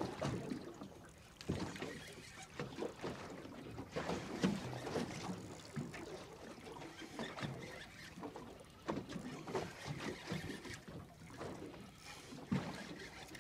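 Water slapping irregularly against the hull of a small drifting boat, with a few sharper knocks among the lapping.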